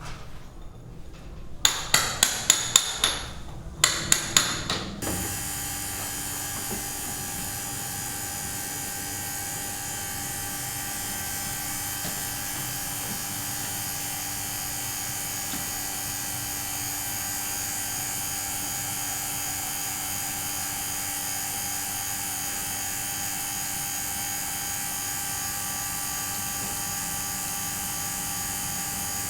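Two quick runs of hammer blows, about eight and then four sharp strikes, followed from about five seconds in by a steady hum with several fixed tones.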